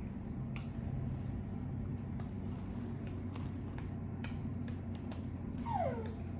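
Plastic utensil and takeout container clicking and tapping as food is picked up and moved around, in irregular sharp clicks. A short falling whine comes near the end.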